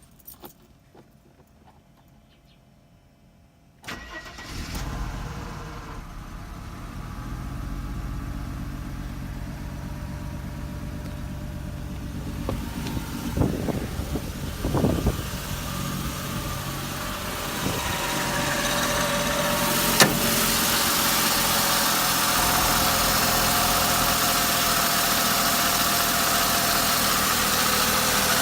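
Mercedes-Benz W124 engine cranked and started about four seconds in, then idling steadily, on new ignition coils, plug boots and plug wires fitted to chase a rough idle. A few short knocks come near the middle, and the running sound grows louder with added hiss from about two-thirds of the way through.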